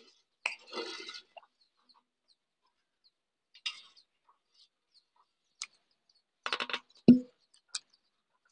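Scattered handling noises of aluminium cooking vessels: a scrape early on, light clicks, and a dull knock with a short low ring about seven seconds in. Just before the knock comes a quick run of short clucking calls from a bird.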